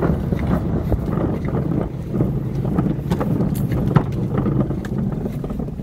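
Plastic wheelie bin being rolled over asphalt: a continuous rough rumble from its wheels, with rattles and a sharper knock about four seconds in.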